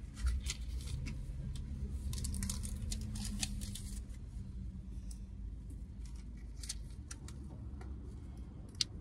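Steady low hum of a car engine idling, heard inside the cabin, with scattered light clicks and rustles of things being handled.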